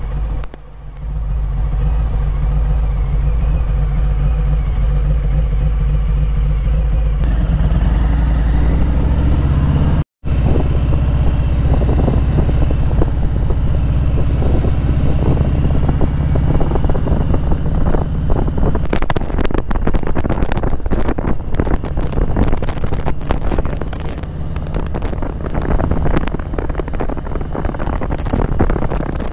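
V-twin motorcycle engine running under way, its pitch stepping up about a quarter of the way through. It cuts out for a split second about ten seconds in. From about two-thirds through, a dense crackle of tyres on a gravel road joins the engine.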